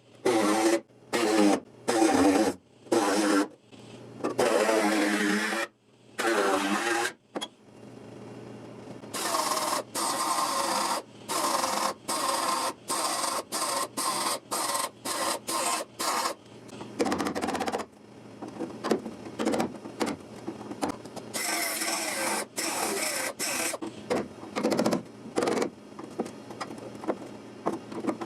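A MIG welder tack- and stitch-welding sheet-steel patch panels: a long run of short crackling bursts, each about half a second, coming roughly twice a second. In the first few seconds there are instead several short bursts of a pitched, whirring power tool.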